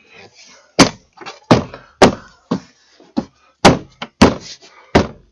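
Hand thumping a car's plastic door trim panel, a series of about nine sharp thumps roughly two a second, pressing the panel onto the door to seat its clips.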